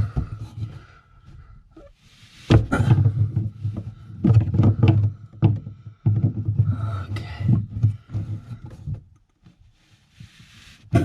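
Knocks, scrapes and rubbing from hand-tightening a bilge pump hose fitting with pump pliers, in three irregular bursts of handling noise.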